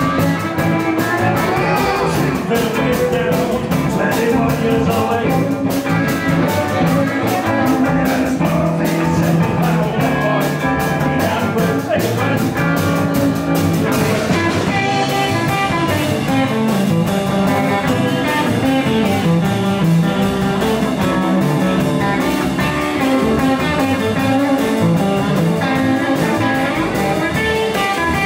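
Live blues band playing: an electric guitar over bass and drums, with a steady beat.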